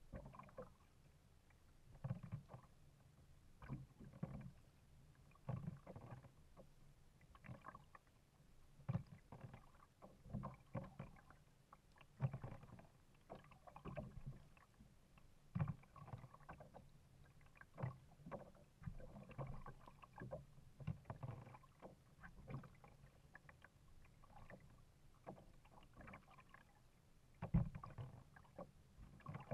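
Kayak being paddled: short splashes and sloshes of water about every second or so, with low knocks of water against the hull.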